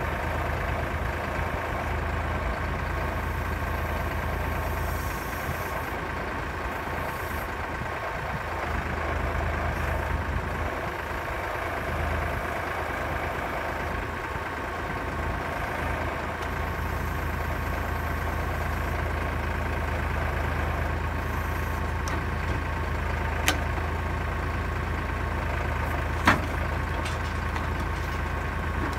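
Kioti tractor's diesel engine running at a steady speed while it drives the hydraulics of a trailer-mounted log loader crane lifting a log. Two sharp knocks near the end, the second louder.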